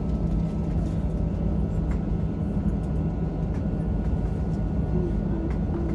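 Airbus A319 cabin noise while taxiing: a steady low drone of the jet engines at low power mixed with the rumble of the airliner rolling over the taxiway.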